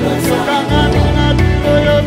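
A live Congolese gospel worship band plays, with bass guitar, guitars, piano and drums.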